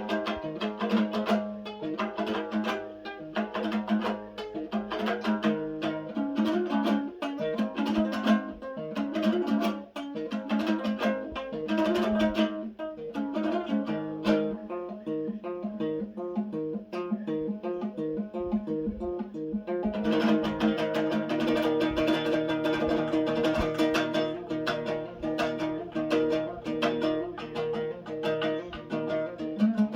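Instrumental music played on a plucked string instrument, with quick, densely repeated notes. It turns thinner and softer in the middle and comes back fuller about two-thirds of the way through.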